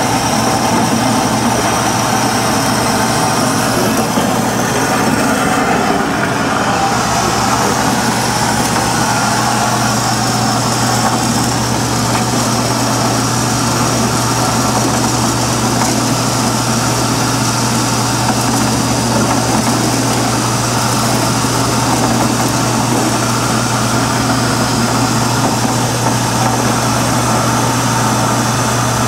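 Wells Model 1200 automatic horizontal band saw running dry at slow blade speed, cutting bar stock at a low feed rate: a steady mechanical running sound with a low motor hum.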